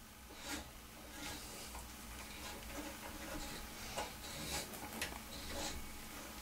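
Hand tap turned in a T-handle tap wrench, cutting a new M8 thread into a milling machine head: a few faint, irregular metallic clicks and ticks as the tap bites.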